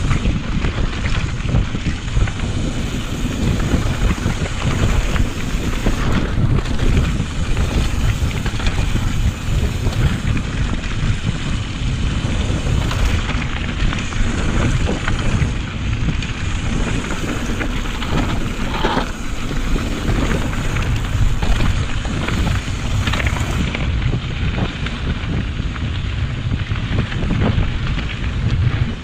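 Wind buffeting the microphone, with the mountain bike's tyres rolling over a dirt trail and the bike rattling and knocking over bumps on a fast downhill ride.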